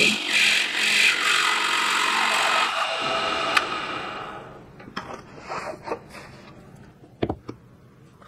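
Drill press boring a hinge-cup hole in red oak with a Forstner-type bit, the cutting noise pulsing as the bit is fed in. About three seconds in the motor winds down with a falling pitch, and a few light knocks and clicks follow, two sharp ones near the end.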